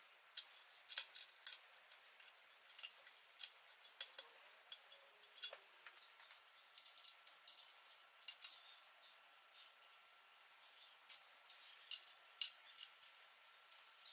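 Light, irregular metallic clicks and clinks of small parts being handled, over a faint steady hiss.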